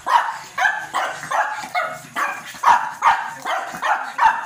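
Small long-haired dog barking rapidly and repeatedly, about two sharp barks a second, excited by a live crab on the floor in front of it.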